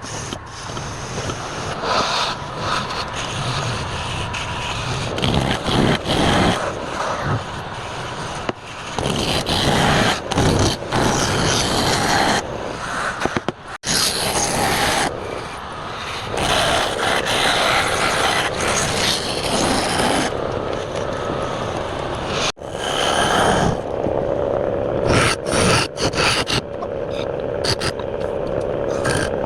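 Woodturning on a lathe: a hand tool scraping and cutting against spinning wood, the sound swelling and easing as the tool bites, with abrupt breaks about 14 and 22 seconds in.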